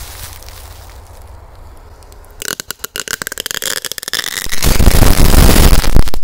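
A crackling firecracker belt packed inside a tin soda can goes off. About two and a half seconds in, rapid crackling bangs start, and about two seconds later they become a much louder, dense barrage of bangs.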